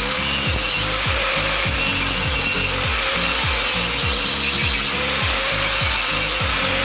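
Power grinder grinding the steel of an old saw blade while shaping it into a knife, a steady grinding sound.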